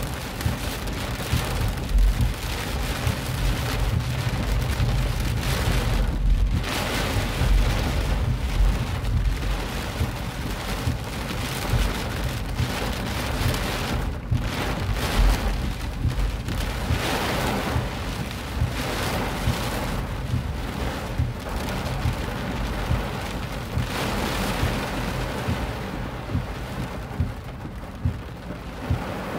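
Heavy rain pelting the car's roof and windshield, heard from inside the cabin as a dense, steady downpour with a low rumble under it and many sharp individual hits. It eases a little near the end.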